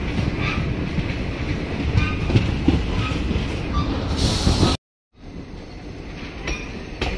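Passenger train running: a steady rumble with faint irregular knocks from the wheels, and a brief hiss just before the sound cuts out about five seconds in. It picks up again as quieter running noise.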